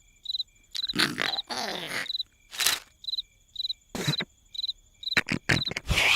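Cricket chirping in short, evenly spaced chirps, about two a second, under several short, louder noisy bursts of cartoon sound effects.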